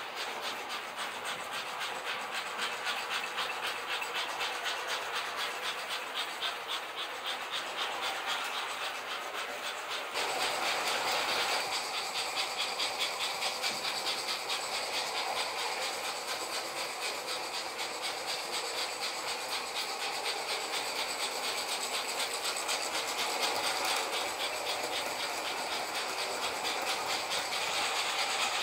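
American Flyer S-gauge toy trains running on tinplate track: a rapid, even clatter of the wheels and motors, louder from about ten seconds in.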